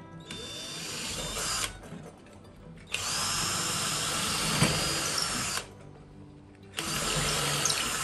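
Cordless drill boring a hole through a wooden door for a door lock's handle and key, run in three bursts: a short one, a longer one of nearly three seconds in the middle, and a short one at the end.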